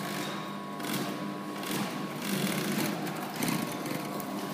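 Industrial sewing machine stitching a label onto a plush toy body in several short runs, over a steady motor hum.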